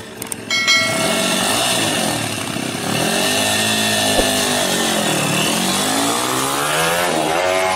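Small single-cylinder pit bike engine revving hard and unevenly, its pitch rising and falling, with a throttle said to be stuck. The revs drop briefly just after the start, then climb again, sweeping up near the end as the bike pulls away.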